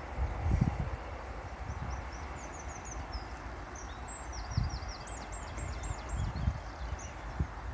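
Outdoor ambience with a small songbird singing two short runs of quick, high, repeated chirps, over a steady hiss and a few dull low thumps.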